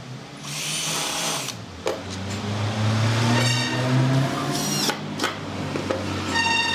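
Cordless drill running in several bursts, boring a pilot hole and then driving a screw through a wooden leg into a pine tabletop. The motor's pitch shifts as it loads up in the wood, with a sharp click in between.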